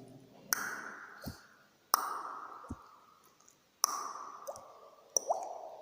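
Beatboxer's mouth-made water-drop sounds: sharp tongue clicks and pops, about four of them roughly a second and a half apart, some with a quick rising 'bloop' in pitch like a falling drop.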